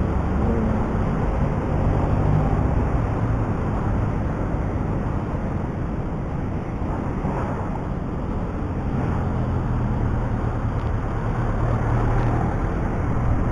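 Motorcycle on the move: the engine running under a steady rush of wind over the rider's microphone, its low note shifting slightly a couple of times.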